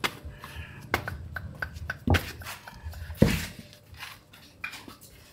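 A large aluminium cooking pot being carried and handled, with scattered knocks and two louder thuds about two and three seconds in.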